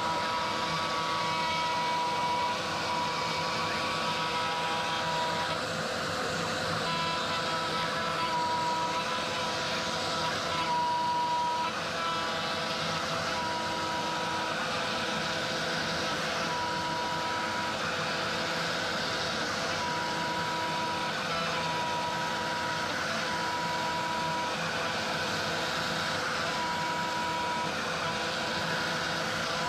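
Genmitsu ProVerXL 4030 CNC router's spindle milling a pocket in hard maple plywood: a steady whine over a broad hiss, with a higher tone that cuts in and out in spells of about a second as the machine moves through the cut.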